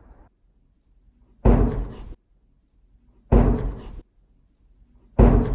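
A loud bang, three times about two seconds apart, each a sharp hit with a short ringing tail. It is the unexplained slam that the explorers compare to a gunshot or a slamming door.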